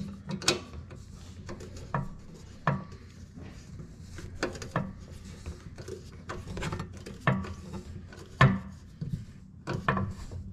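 A hand screwdriver working a mounting screw on the metal rail of a pull-out garbage drawer mechanism, giving irregular clicks, knocks and scrapes of tool on metal, with a few sharper knocks spread through.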